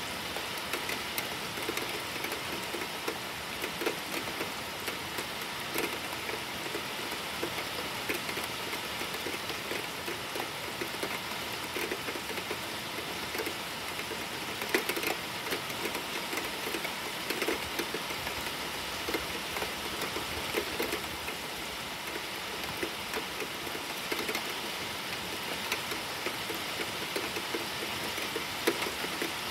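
Steady rain falling, with many close drops ticking irregularly on a hard surface. No thunder is heard.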